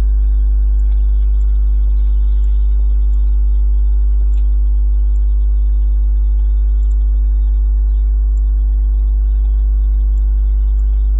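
Steady, deep electrical hum with several higher overtones stacked above it, like mains hum picked up on the audio line.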